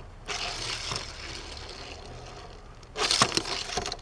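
Hot Wheels 1964 Corvette Stingray die-cast car on an orange plastic Hot Wheels track: a rolling rattle of its wheels that fades after about a second. A louder clatter with a few clicks comes about three seconds in, as the car is handled on the track.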